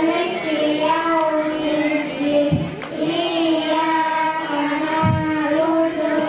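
A young boy's voice chanting a recitation in long, held, gently wavering notes, picked up by a headset microphone.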